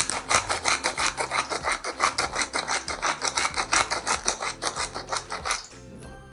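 Hand-twisted salt grinder grinding salt into a bowl: a fast, even run of gritty ratcheting rasps, about ten a second, that stops near the end.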